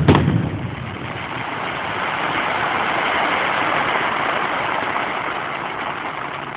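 Fireworks: a bang at the very start, then a long dense crackle that swells over a few seconds and slowly fades.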